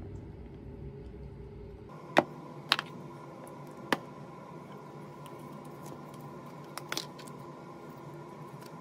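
Sharp plastic clicks and knocks of Play-Doh toy pieces being handled and set down on a table: three spaced clicks, then a quick pair near the end, over a steady faint hum.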